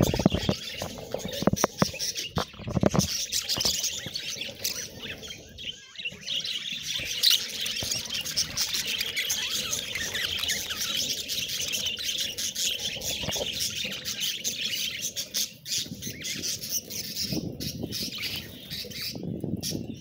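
A flock of budgerigars chirping and warbling continuously in a dense, overlapping chatter. A few close thumps sound in the first three seconds.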